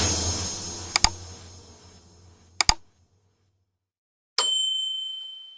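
Sound effects: a whoosh fading out, two quick double mouse-clicks, then a single bell ding that rings on and fades away.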